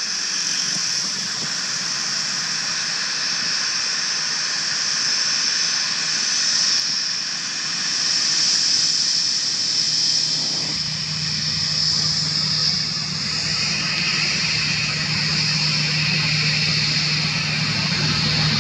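Airbus A318 airliner's jet engines running with a steady high whine and hiss as it rolls along the runway close by. A low hum joins about ten seconds in.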